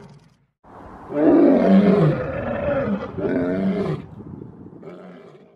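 A big cat roaring: two long, loud roars, the first about two seconds long, then a weaker trailing call that fades out near the end.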